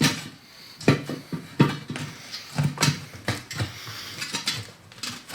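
Irregular metallic clanks and knocks, about ten in a few seconds, from tools working a tyre bead off a wheel rim.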